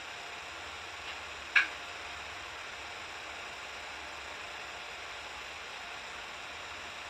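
Steady hiss with a single sharp knock about a second and a half in, just after a much fainter tap.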